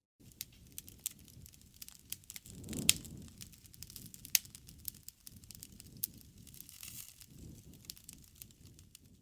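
Wood fire crackling, with scattered sharp pops over a low rustle of flames; the loudest pop comes about three seconds in, with another a second and a half later.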